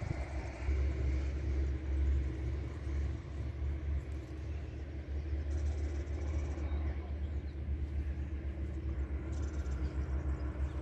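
Wind buffeting the microphone, a steady low rumble, with a couple of brief faint rustles from handling small sticks and soil.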